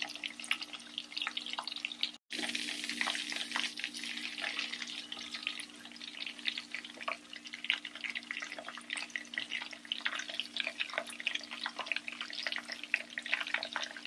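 Prawn balls deep-frying in hot oil: a dense, steady crackle and sizzle of bubbling oil. It cuts out for an instant about two seconds in and comes back louder.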